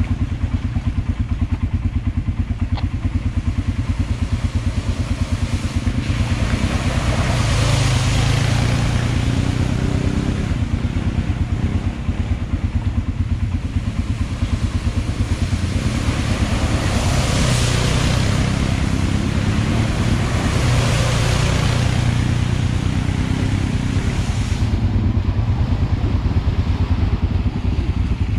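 ATV engine running steadily at idle, a fast even low pulse. Three times it swells louder with a rush of splashing as ATVs drive through muddy water.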